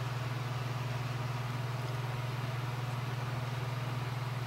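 Steady low hum with faint hiss underneath, unchanging throughout.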